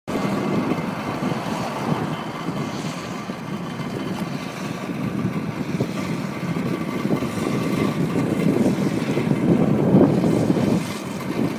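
Muddy water gushing steadily out of the open end of a large pump discharge hose and splashing onto a flooded pavement.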